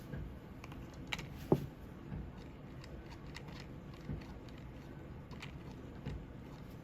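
Small plastic toy pieces being handled: scattered light clicks and taps, with one sharp knock about one and a half seconds in.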